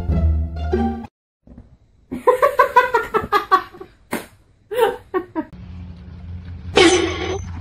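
A few notes of plucked string music at the start, then a person laughing in short rhythmic bursts for about a second and a half. Later a low steady hum, with a short rush of noise near the end.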